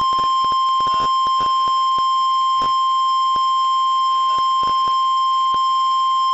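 NOAA Weather Radio warning alarm tone, one steady high tone with scattered clicks of radio static. It cuts off suddenly near the end, the signal that a warning message is about to be read.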